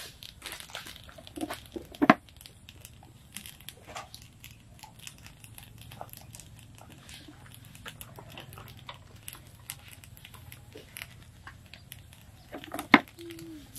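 Open wood fire crackling with scattered small pops, with two much louder sharp cracks, one about two seconds in and one near the end, as bamboo tubes of sticky rice are set into the flames.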